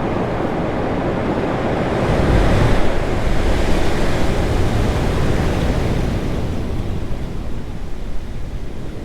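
Ocean waves breaking on rocks: a wave surges in about two seconds in, then the wash slowly dies down toward the end.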